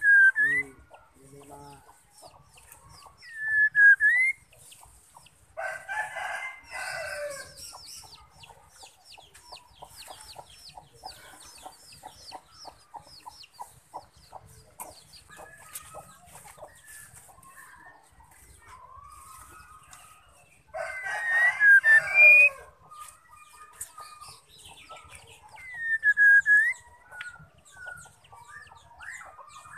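A rooster crows twice, about a quarter of the way in and again about two-thirds through; these are the loudest sounds. Between the crows a white-rumped shama gives short rising-and-falling whistled notes and long runs of fast ticking chatter.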